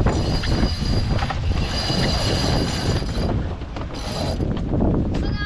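Wind buffeting the microphone aboard a sailing yacht, with a high-pitched mechanical squeal from the deck gear for most of the first three seconds and again briefly near the end.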